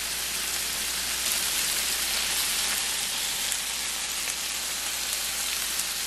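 Vegetarian chicken strips and green peppers sizzling steadily in oil in a nonstick frying pan, with faint scattered crackles.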